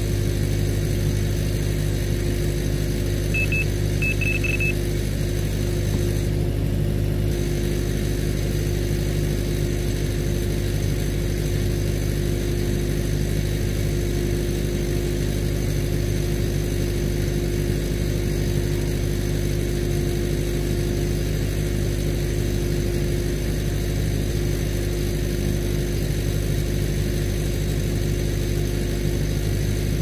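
Farm irrigation pump's engine running steadily with a constant low drone. A few short high beeps sound about four seconds in.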